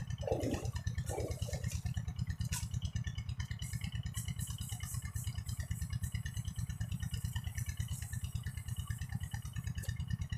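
A small engine, the irrigation water pump's, running steadily with a fast, even chugging. In the first couple of seconds, water splashes as someone wades out of the shallows.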